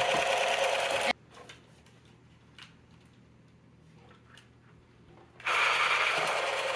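Toy RC truck running with a steady whirr that cuts off suddenly about a second in, leaving a few faint clicks, and starts up again about five and a half seconds in.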